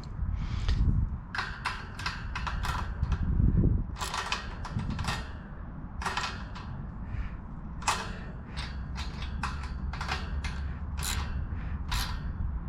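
Hand tools working the bolts and nuts of a bike basket mount: irregular sharp metallic clicks and clinks, one or two a second, over a low rumble.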